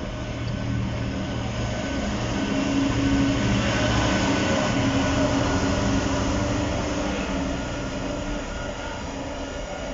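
Freightliner Class 66 diesel locomotive, with its two-stroke V12 engine, passing close while hauling a container freight train. The steady engine drone swells to its loudest a few seconds in as the locomotive goes by, then fades into the rolling noise of the container wagons on the rails.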